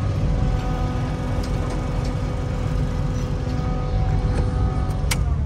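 Skid steer loader's engine running steadily with a whine, heard from inside the closed cab. A sharp click comes near the end, and the engine's pitch starts to drop.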